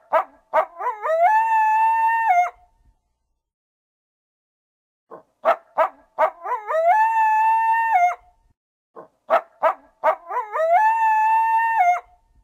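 Coyote howling, three times the same: each call opens with a few short yips that rise into a long, steady howl of about a second and a half, which dips in pitch at the end. Dead silence lies between the calls.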